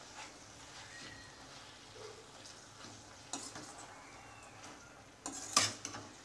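Steel slotted spoon stirring vegetables in a stainless steel pan: soft scraping with a few light clinks, and a louder clatter of metal on metal about five and a half seconds in.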